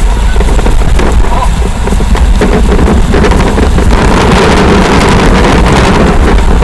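Strong wind buffeting the microphone: a loud, steady low rumble with a hiss over it.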